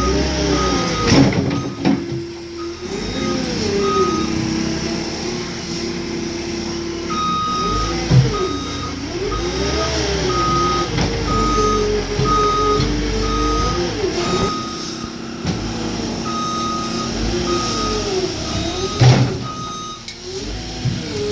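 Diesel engine of heavy earthmoving equipment rising and falling in pitch again and again as it works under hydraulic load, with a backup alarm beeping steadily in runs that pause twice. Three sharp metallic knocks stand out as the loudest moments.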